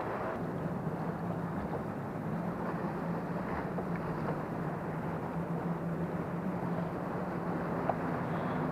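Outboard motor running steadily at low speed, a low hum over wind and water noise, its pitch stepping up slightly near the end.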